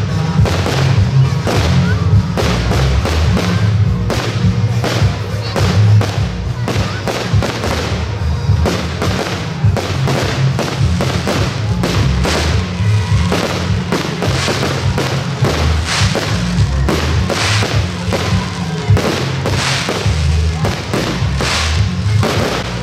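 Fireworks going off in a dense, rapid barrage of bangs and crackling, many blasts a second, over a continuous low rumble.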